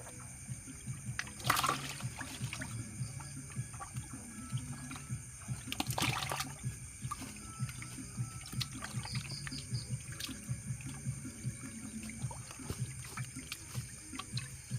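Water splashing and dribbling with small knocks, and two louder splashes about one and a half seconds and six seconds in.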